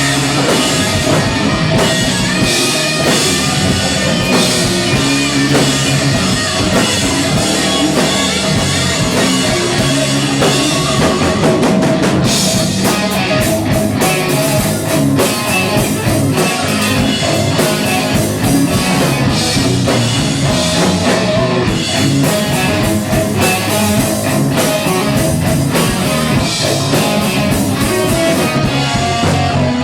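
Rock band playing live: drum kit keeping a steady beat under electric guitars, loud and continuous.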